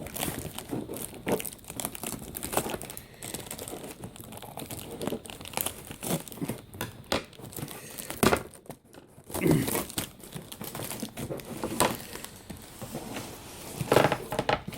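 Packaging being handled as a shipping box is opened: a dense run of irregular crinkling and crackling, with tearing sounds and a few louder rustles partway through and near the end.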